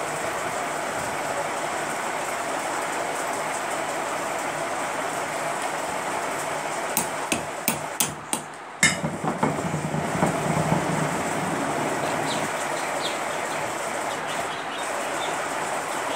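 Small hard clicks and knocks of parts being handled on a ceiling fan motor as its capacitor and wiring are fitted: a quick run of about six sharp clicks about seven to nine seconds in, then lighter ticks, over a steady noisy hiss.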